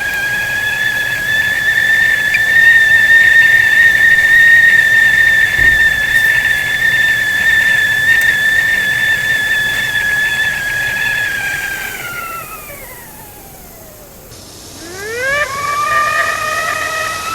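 Whistling teakettle at the boil, its steam whistle holding a steady high tone over a faint hiss. Near the end the whistle slides down in pitch and dies away, then starts again with a quick rising pitch and settles back into a steady whistle.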